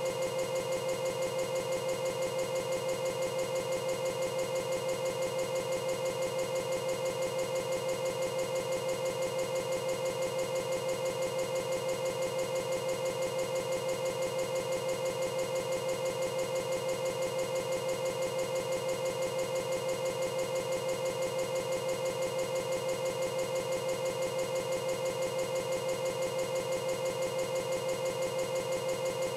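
Steady, unchanging buzzing drone with a fast, even pulse: a looping digital glitch in a corrupted recording rather than music or live sound.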